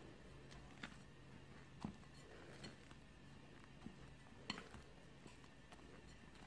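Faint soft taps and scraping of a silicone spatula against a glass mixing bowl as thick cake batter is folded, a few separate light clicks scattered over a quiet background.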